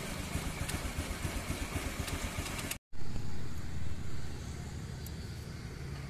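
Road traffic noise with a low rumble of passing vehicles. The sound drops out for a split second just before the midpoint, then swells louder for about a second as a vehicle passes, and settles into a steadier, quieter hum.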